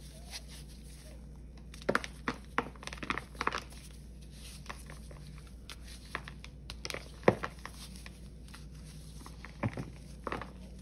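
Dried paste ball made of Ajax powder cleanser, Pine-Sol and Palmolive crunching and crumbling as gloved hands squeeze it until it breaks into chunks. Clusters of sharp crackles come about two, seven and ten seconds in, with the loudest snap around seven seconds.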